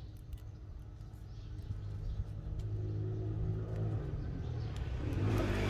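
A motor engine's low, steady hum, growing louder from about two seconds in, with a few faint clicks over it.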